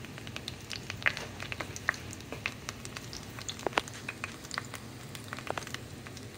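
Butter and oil sizzling around two crab burgers frying in a stainless steel pan, with scattered irregular pops and crackles over a faint low hum.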